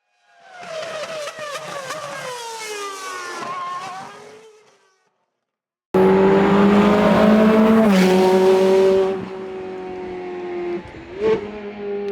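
Ferrari F430 Scuderia's V8 engine, heard in two stretches: first its note falls steadily in pitch and fades away; then, after a second of silence, it starts abruptly loud at a steady pitch, dips slightly in pitch, drops in level, and gives a brief rev blip near the end.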